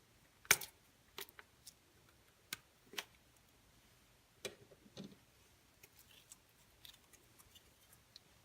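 Slime being squeezed and worked by hand, making a run of sharp, irregular clicks and pops, the loudest about half a second in.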